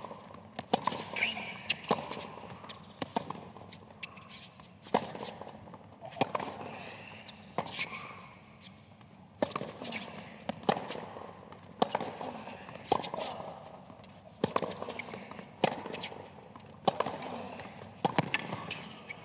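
Tennis rally on a hard court: the ball struck back and forth with rackets and bouncing on the court, a sharp hit about every second.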